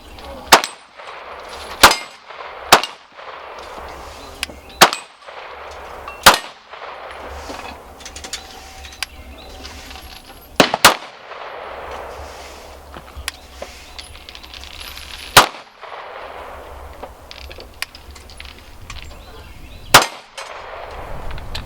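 Pistol shots fired one at a time: about nine sharp reports at uneven intervals, with two in quick succession about eleven seconds in.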